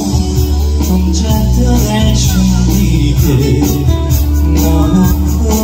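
A male singer singing live into a handheld microphone over a loud backing track with guitar, heavy bass and a steady beat, amplified through a stage sound system.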